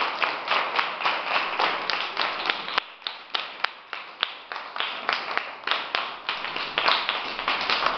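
A room of children clapping in applause. The clapping thins to a few scattered claps about three seconds in, then picks up again.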